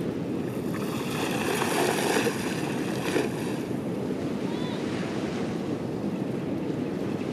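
Shallow water lapping and washing, with wind on the microphone. A louder, hissing wash of water swells about a second in and fades by about three and a half seconds.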